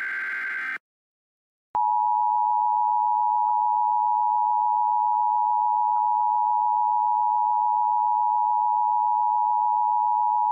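Emergency Alert System broadcast sequence: the end of a short screeching burst of SAME digital header tones, a brief gap, then the EAS two-tone attention signal, two steady tones sounded together at a fixed pitch and held without a break.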